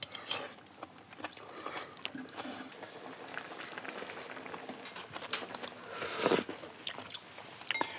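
Eating sounds from a mushroom hot pot: metal spoons clicking against bowls, sips of broth and chewing, over the pot simmering on a portable gas burner.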